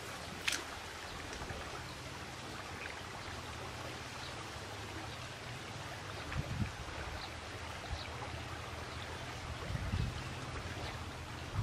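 River water rippling and sloshing around a man wading chest-deep along the bank, with a few dull low thumps about six and ten seconds in.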